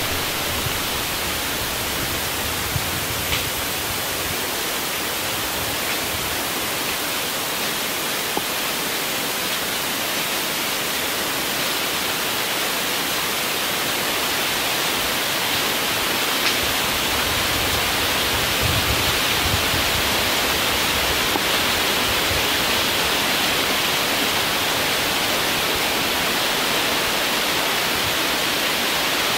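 Wind blowing through the treetops and leaves: a steady, even hiss with no break.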